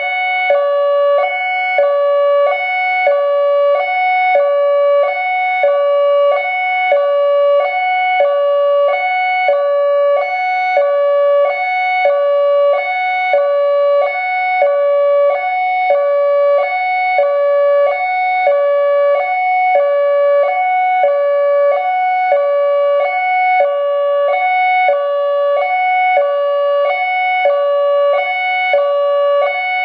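ACA Alertronic AL-4000 electronic outdoor warning siren sounding its loud hi-lo tone, switching steadily between a high and a low pitch about twice a second, as it runs its full three-minute hi-lo test cycle.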